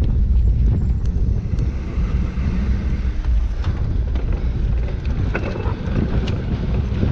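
Heavy wind buffeting on a handlebar-mounted action camera's microphone over the rumble of a racing dirt bike, a loud steady roar with a few small ticks.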